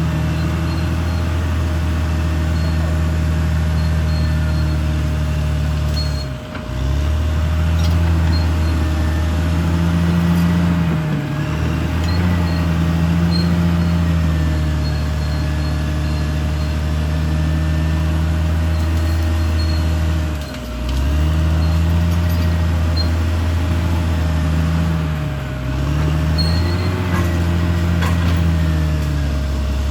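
Caterpillar D6R XL bulldozer's diesel engine running hard, its pitch dipping briefly and recovering several times as it takes load.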